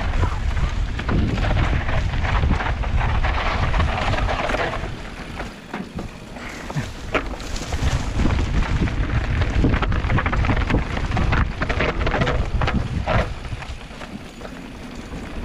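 Wind buffeting the microphone while a mountain bike rides down a rough trail, with tyre noise and frequent sharp knocks and rattles from the bike over bumps.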